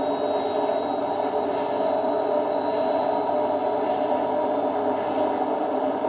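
Indesit IWD71251S washing machine running: a steady drum and motor noise with a thin high whine that climbs slowly in pitch.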